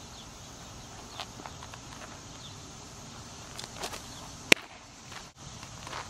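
A pitched baseball smacking into the catcher's mitt: one sharp pop about four and a half seconds in, just after a few soft scuffs of the pitcher's stride in the mound dirt.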